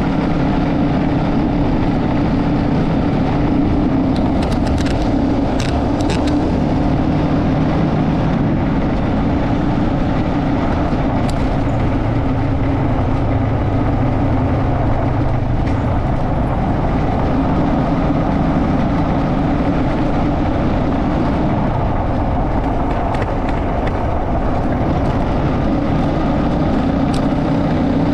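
Motorcycle being ridden along a road: a steady rush of engine and road noise that does not let up, with a few faint clicks about five seconds in.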